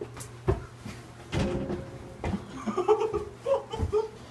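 Scuffling and thumps of two people grappling in a staged fight, with clothes rustling and bodies knocking. In the second half come short, broken vocal sounds, strained grunts and stifled giggles.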